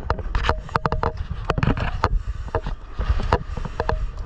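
Firefighter's turnout gear and equipment knocking and clattering close to the microphone, many sharp irregular clicks over a low rumble from movement.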